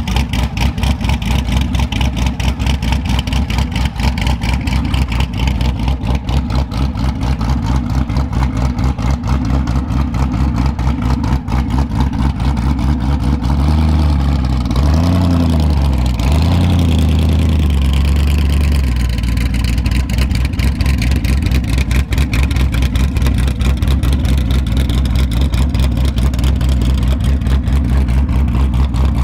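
Boss Hoss Super Sport's 6.2-litre LS3 Corvette V8, fitted with a performance camshaft, idling with an uneven beat that goes up and down. Its revs rise and fall in a few short throttle blips around the middle.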